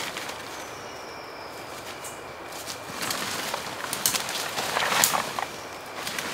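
Crackling and rustling, growing busier from about three seconds in, with a faint thin whistle falling slightly in pitch about half a second in.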